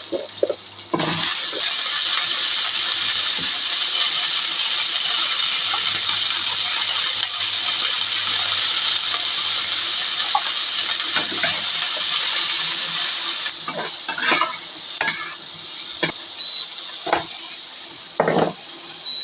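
Food sizzling in hot oil in a frying pan, a dense steady hiss that eases off in the last few seconds, with a spatula stirring and scraping against the pan several times near the end.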